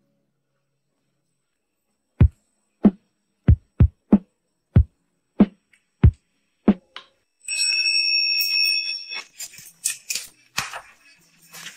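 A sparse electronic drum beat of deep, sharp thumps about every half second, after a short silence. It gives way to a brief hiss carrying a steady high tone, then light clicks and clatter of small objects being handled on a countertop.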